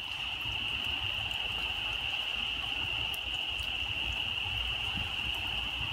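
Chorus of frogs calling at night, a steady high-pitched chorus that never lets up, over a low rumble from the microphone.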